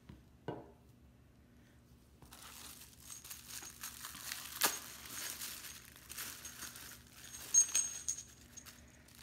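Pink plastic bubble wrap crinkling and rustling as gloved hands unwrap a small metal part, with sharp clicks through it and a brief metallic clink about seven and a half seconds in. A light knock about half a second in.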